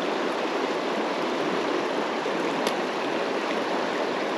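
Steady rush of a flowing mountain stream, with one small click about two and a half seconds in.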